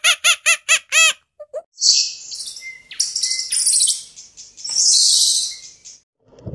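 About a second of quick, evenly repeated squeaky calls, then a red squirrel's very high, rapid buzzing chatter in several long bursts.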